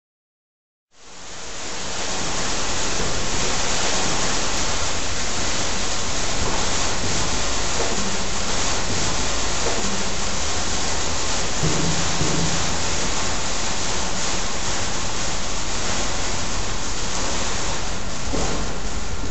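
Steady, dense rain-like hiss that fades in from silence about a second in and holds evenly.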